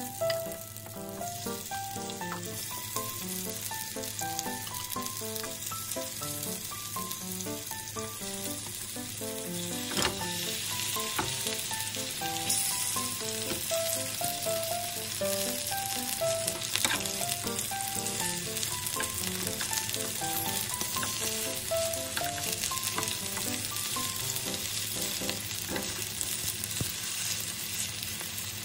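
Pea, corn and cheese patties sizzling steadily in cooking oil in a flat pan, with a few sharp clicks of a spatula against the pan. Quiet background music plays underneath.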